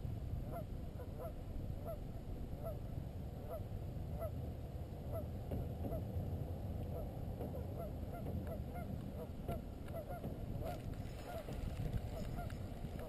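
Many short animal calls repeating about twice a second and overlapping in a steady chorus, over a low rumble of wind and water.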